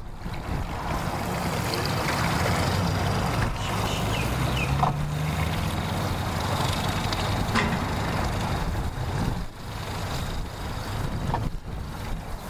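Yamaha outboard motor on a jon boat idling with a steady low hum, with a couple of light knocks.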